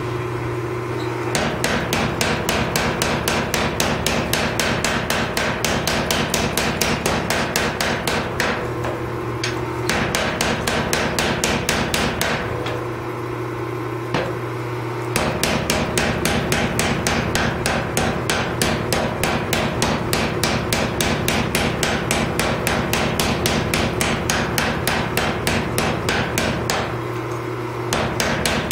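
Power hammer pounding a glowing Damascus steel billet in rapid, evenly spaced blows, several a second. It pauses three times, once near the end, while the hammer's motor keeps humming.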